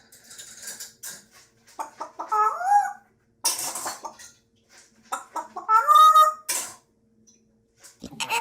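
An animal calling: a few short squawks that bend up and down in pitch, with short noisy bursts between them.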